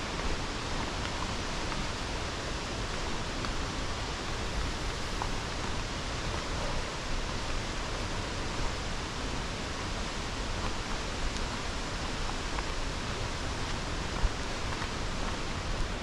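Steady, unbroken rush of flowing or falling water.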